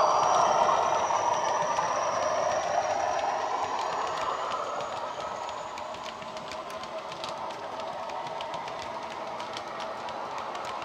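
Sound decoder on a Class 40 model locomotive playing the English Electric diesel engine through a small speaker, with a high whistle, as the model passes and draws away. Fainter steady clicking follows as the coach wheels run over the track joints.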